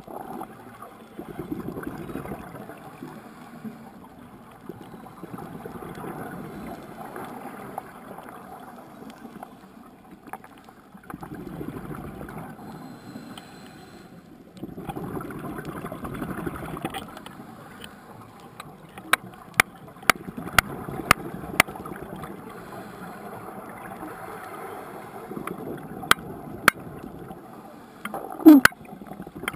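Scuba diver's exhaled air bubbling out of the regulator underwater, in long gurgling swells every few seconds. A run of sharp clicks comes in the second half, and a short falling squeak near the end.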